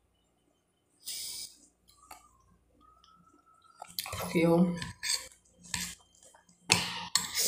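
A fork clinking and scraping against a plate of food several times in the second half. Just before it comes a short vocal sound, and about a second in there is a brief hiss.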